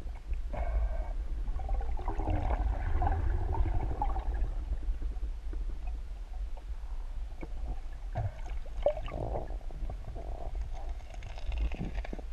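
Muffled underwater sound picked up by a submerged camera: a steady low rumble of moving water, with gurgling and bubbling that comes and goes in several short stretches.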